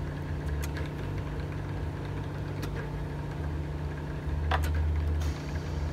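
Steady low hum of an automatic glass remover machine's vacuum suction pump, louder for about a second past the middle, with a few light clicks and a short scrape as a phone's LCD is slid off its glass.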